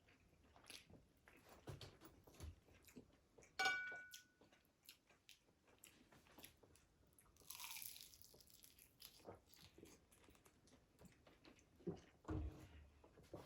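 Close-miked crunching and chewing of crispy fried food. There is a short, ringing clink about three and a half seconds in.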